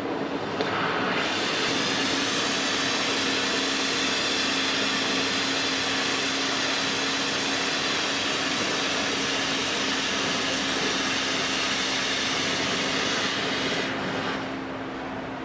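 Workshop machine with a steady motor hum; a loud, even hiss joins it about a second in and stops near the end.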